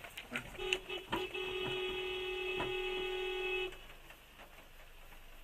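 Vehicle horn sounding: two short taps, then one long steady blast of about two and a half seconds that cuts off suddenly. A few sharp clicks come just before and under the first taps.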